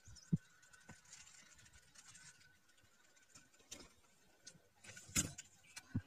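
Faint outdoor ambience with a few scattered soft knocks and rustles, the loudest about five seconds in.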